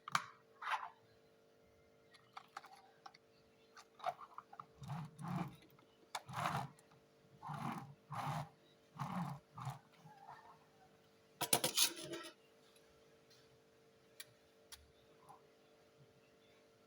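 A series of short rustles and knocks, mostly in the middle, followed by a quick cluster of sharp clicks, over a faint steady hum.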